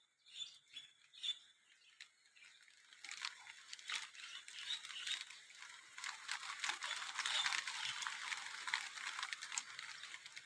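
A few short bird chirps, then from about three seconds in rain pattering steadily, a dense crackle of drops that grows louder.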